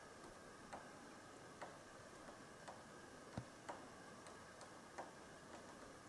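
Eurasian three-toed woodpecker tapping at the wood of a dead trunk as it forages, faint single knocks at an uneven pace of about two a second.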